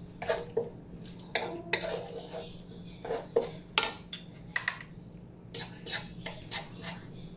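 A metal utensil stirring a sauce in a cooking pan, with irregular clinks and scrapes against the pan.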